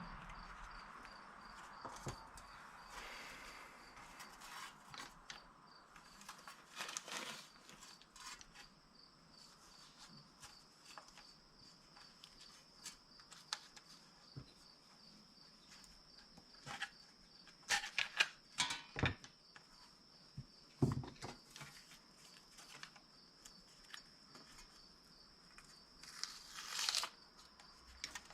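Faint, scattered crinkling and tearing of tape being pulled off, torn and pressed down by hand, in short clusters with quiet gaps between.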